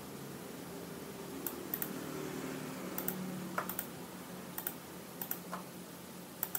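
Scattered clicks and taps of a computer keyboard and mouse being worked, irregular and some in quick pairs, starting about a second and a half in, over a faint steady low hum.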